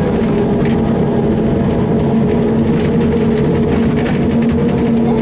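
Ikarus 260.50 city bus's diesel engine running steadily under way, heard from inside the passenger cabin over low road rumble.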